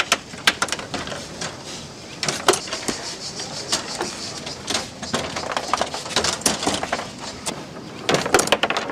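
Foosball table in play: irregular sharp clacks and knocks of the ball and spinning rods striking the table, with a quicker flurry of hits near the end.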